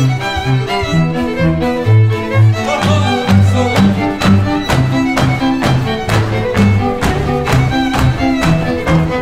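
Góral string band of fiddles and a bowed bass playing a fast obyrtany dance tune, the bass sounding short, regular notes under the violins.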